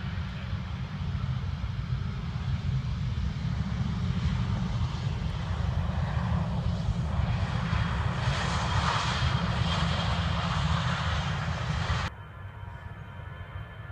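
Airliner engines passing close by, growing louder to a peak, then cut off abruptly about twelve seconds in, leaving a quieter steady hum.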